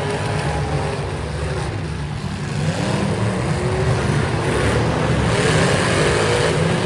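Several demolition derby cars' engines running and revving together, their pitch rising and falling; the sound grows louder about three seconds in.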